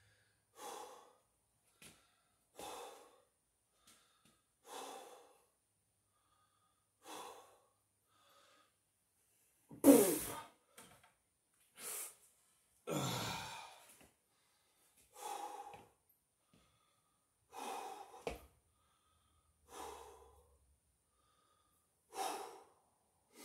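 A man breathing hard through pistol squats: about a dozen forceful exhales, roughly one every two seconds, the loudest about ten seconds in.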